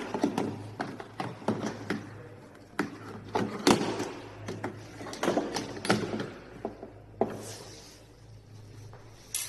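Irregular clicks, taps and knocks of small parts and tools being handled while working on a steering motor, over a steady low hum. The knocks thin out near the end.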